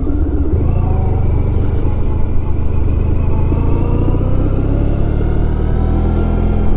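Honda ST1100 motorcycle's V4 engine pulling under acceleration, its pitch rising steadily over several seconds, under a heavy low rumble of wind and road noise.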